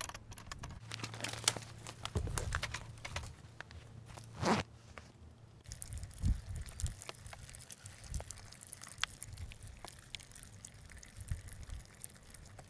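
Quiet handling noises: rustling, crinkling and scattered small clicks and knocks, with a low hum through the first few seconds and a short low sound about four and a half seconds in.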